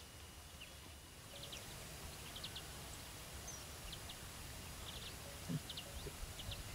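Faint outdoor evening ambience with scattered short, high chirps in small clusters of two or three, and a single soft low knock about five and a half seconds in.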